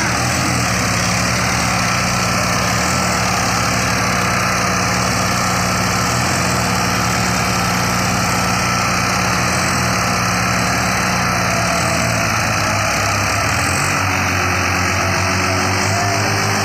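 Tractor diesel engine running steadily under load, towing a stuck tractor out of the mud by a chain; its note shifts about three-quarters of the way through.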